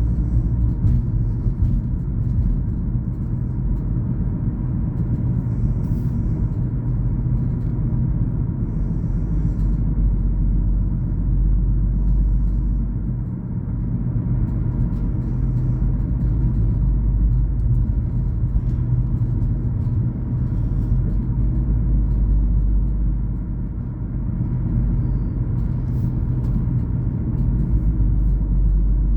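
Car driving along a road: steady low rumble of engine and tyres, easing slightly twice.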